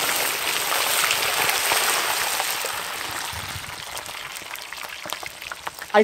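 A whole chicken deep-frying in a pot of hot oil: the oil sizzles and bubbles hard, slowly fading as it settles.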